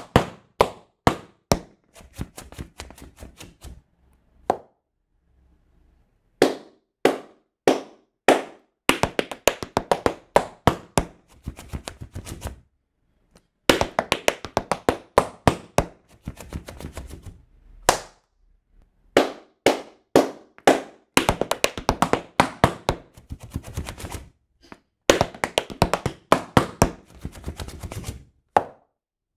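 Metal taps on tap shoes striking a wooden floor in quick rhythmic phrases of toe shunts, each run of sharp clicks broken by a short pause.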